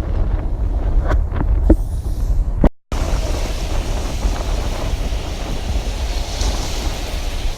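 Wind buffeting the microphone with a rumble, over a steady wash of ocean surf. The sound cuts out briefly partway through and resumes as the same wind and surf wash.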